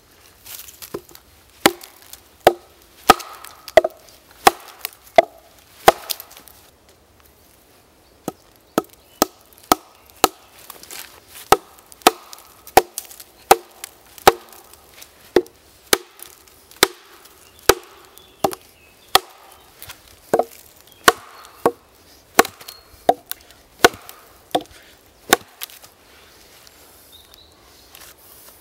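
Wooden club striking wooden wedges driven into a log, splitting it lengthwise: a long run of sharp, evenly paced wooden knocks, a little more than one a second, with a short pause about six seconds in.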